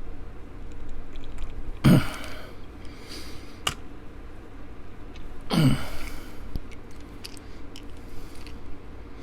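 Two short breathy vocal sounds from a man, each falling in pitch, about two seconds and five and a half seconds in. Faint clicks of small tools being handled run between them, with one sharper click in the middle.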